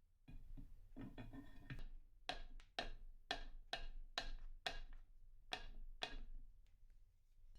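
Workshop tapping: a short rattle and scrape, then about ten sharp knocks, roughly two a second, each with a brief ring.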